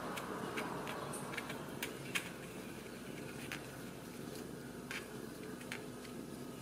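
Ragdoll kittens suckling at their mother: soft, irregular smacking clicks, more frequent in the first couple of seconds, over a steady low rumble.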